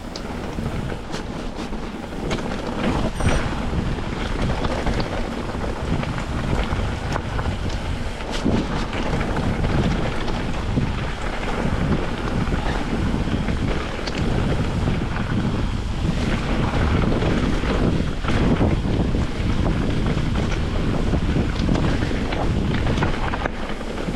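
Wind rushing over the camera microphone on a fast mountain bike descent, with tyres rolling on a dirt trail and the bike rattling and knocking over rough ground.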